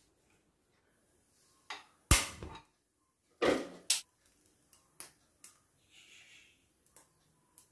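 Cookware handling at a gas hob: a sharp knock about two seconds in, then a short scrape ending in a click as a non-stick frying pan is set on the burner. Light clicks follow, and near the end there is the soft trickle of cooking oil poured into the pan.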